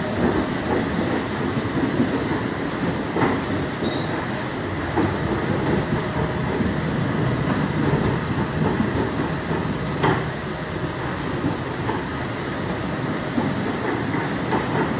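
Inside a rubber-tyred Bombardier Innovia 300 monorail car running between stations: a steady rumble of the train in motion with a thin high whine over it. The whine drops out for about a second around ten seconds in, and there are a couple of faint knocks.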